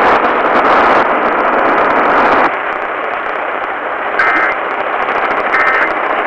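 Hissing radio static with no programme audio, louder for the first two and a half seconds. About four and five and a half seconds in come two short bursts of Emergency Alert System data tones, the End of Message code that closes the test broadcast.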